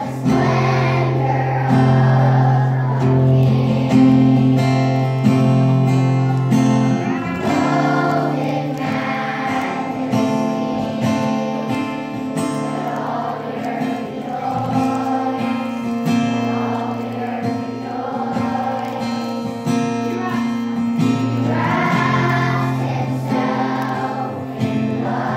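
Children's choir singing a worship song in unison over backing music with steady held bass notes.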